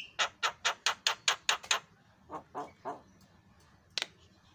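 Javan myna (jalak kebo) calling: a fast run of about eight harsh, rasping notes, then three softer, lower notes and a single sharp note near the end.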